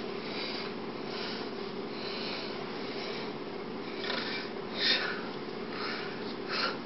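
Steady low room hum with soft, irregular breathy puffs about once a second, a person breathing and sniffing close to the microphone.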